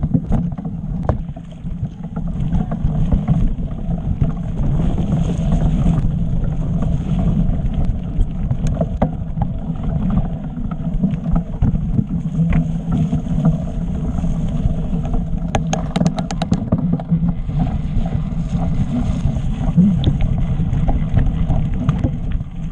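Mountain bike ride on a rocky quarry trail: a steady low rumble of tyres and wind buffeting the microphone, with scattered clicks and rattles from the bike, and a quick run of clicks about two-thirds of the way through.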